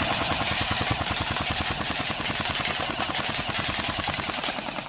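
Barra 400E electric (AEG-type) BB rifle firing one long full-auto burst of .177 steel BBs: a rapid, even rattle of shots at about 500 rounds a minute that cuts off suddenly at the end.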